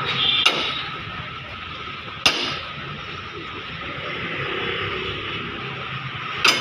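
Three sharp taps of a hammer or dent tool on a car fender's sheet metal, spread a couple of seconds apart, the middle one ringing briefly. A steady background hiss runs underneath.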